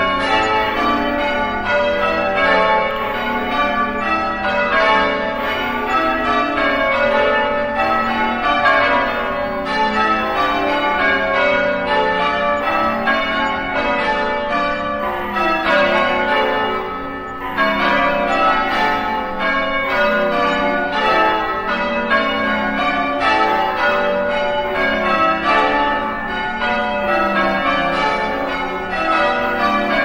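Church bells ringing on and on, many strokes following close on one another so that their tones overlap into a dense ring.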